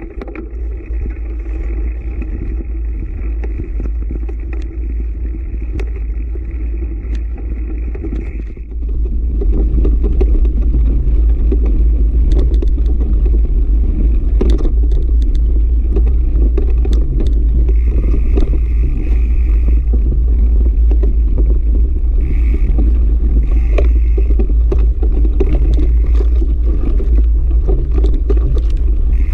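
Mountain bike riding a sandy dirt trail, with heavy wind rumble on the camera mic, knobby tyres on loose dirt and scattered clicks and rattles from the bike over bumps. A steady high buzz runs for the first several seconds, and everything gets louder about nine seconds in.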